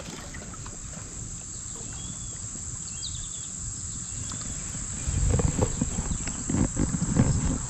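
Steady high-pitched buzz of insects in summer streamside vegetation, with a few short bird chirps. About five seconds in, louder low rustling and bumps from handling on the microphone.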